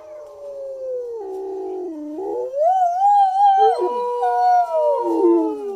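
Dogs howling: long, wavering howls that glide up and down in pitch, with two or more voices overlapping, loudest in the second half.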